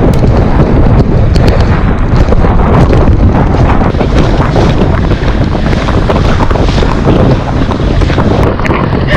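Wind rushing and buffeting hard over the microphone aboard a fast-moving motorboat, with the boat's engine and water noise beneath it.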